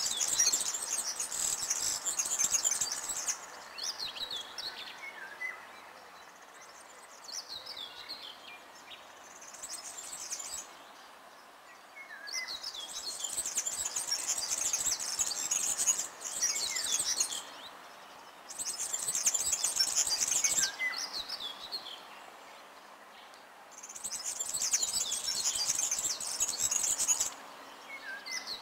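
A songbird singing in repeated high, quick phrases of two to four seconds, with pauses of a few seconds between them.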